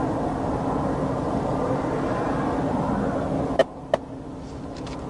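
Steady roadside noise of highway traffic and vehicle engines. About three and a half seconds in come two sharp clicks a third of a second apart, and after them the noise is much quieter.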